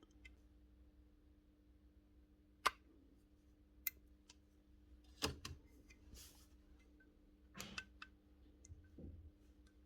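A few sparse, sharp clicks and light knocks, about five over several seconds, from parts of a pneumatic pin nailer being handled during repair, over a faint steady hum.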